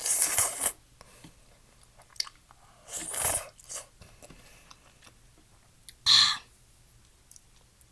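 Close-miked eating of udon noodle soup: three loud bursts of mouth noise, about three seconds apart, with faint chewing between.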